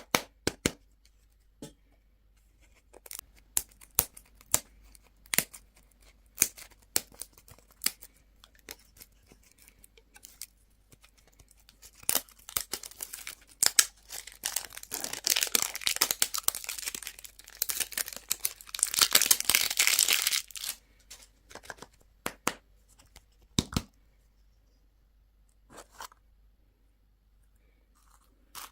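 Plastic candy packaging handled and opened: scattered light clicks and taps, then from about twelve seconds in a dense stretch of wrapper tearing and crinkling lasting some eight seconds, then a few more taps.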